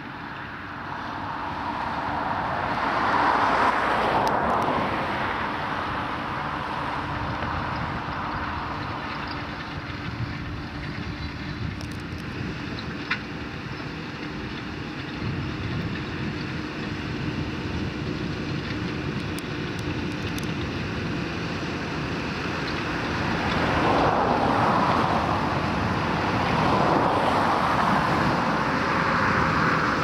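Fendt tractor engine running steadily under load as it pulls a six-furrow reversible plough through the soil. It grows louder twice, about four seconds in and again in the last several seconds, as it passes close by.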